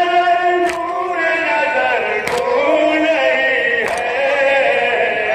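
Men's voices chanting a nauha, a Shia lament, as a sustained group chant. Sharp strikes land three times, about a second and a half apart, fitting the mourners beating their chests (matam) in unison to the rhythm of the lament.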